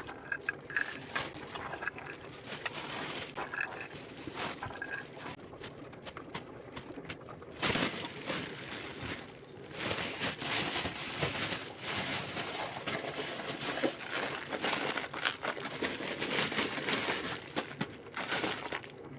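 Continuous rustling and crinkling with many small clicks and knocks, like food being handled and packed in the kitchen; it gets louder about eight seconds in.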